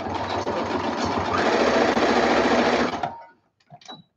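Brother electric sewing machine running, stitching through fabric. It gets louder just over a second in and stops about three seconds in, followed by a couple of faint clicks.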